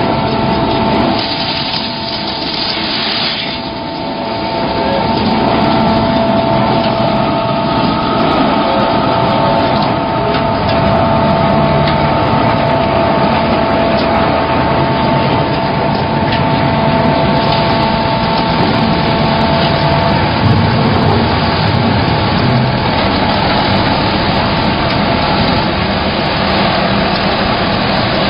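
Concrete mixer pump machine running: a steady engine-like mechanical drone with a high, steady whine over it, dipping briefly about two to four seconds in.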